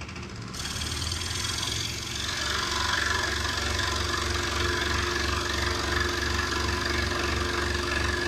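Electric scroll saw running, its reciprocating blade cutting into a 20 mm block of fir. The sound builds over the first two seconds as the saw comes up and the blade starts into the wood, then runs steadily with a regular low throb.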